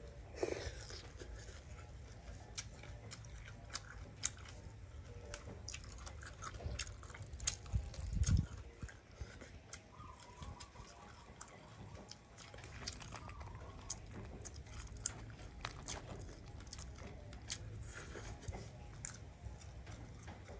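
Someone chewing and biting into grilled fish, with scattered small crunches and clicks, and a dull thump about eight seconds in.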